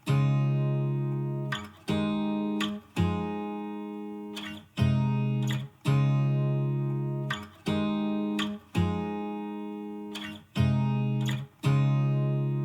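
Background music: acoustic guitar chords strummed in a slow rhythm, each chord ringing out and fading before the next.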